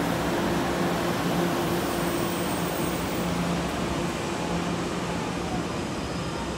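Taroko Express tilting electric train arriving at a platform in an underground station: steady hum from the train and running noise of its wheels on the rails, growing gradually quieter as it slows.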